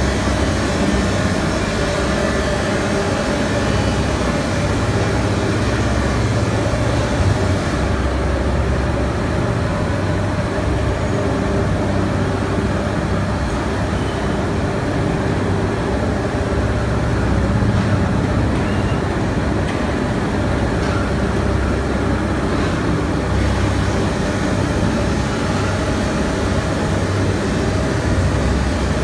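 Steady mechanical rumble and hum, like heavy machinery or vehicles running, with no pauses or sudden events.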